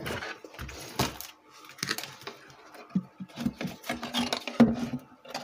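Wooden subwoofer cabinet being turned over and handled: irregular knocks, clicks and rattles of the box and its jack panel, the strongest knock near the end.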